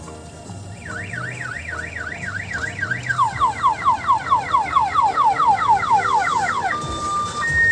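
Electronic multi-tone siren cycling through its patterns: a fast up-and-down warble, then a run of quick falling sweeps at about five a second, then a two-tone high-low alternation near the end.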